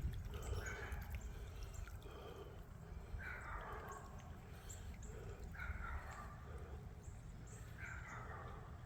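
Slow, careful footsteps on wet creek-side ground, one step about every second and a bit, over a steady low rumble of wind on the microphone.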